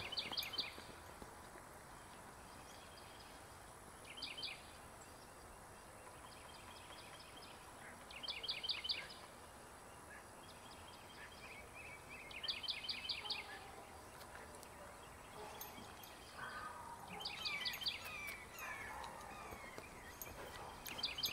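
A songbird singing a short, rapid phrase of several high notes, repeated about every four seconds, over faint outdoor background noise.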